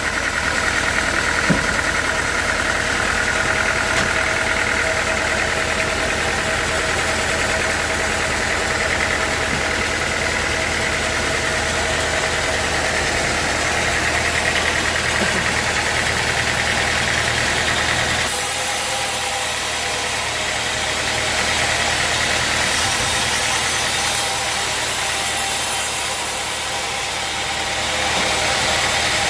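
Sawmill machinery running steadily with a constant mechanical drone. About eighteen seconds in its low hum drops away and a higher, steady noise carries on.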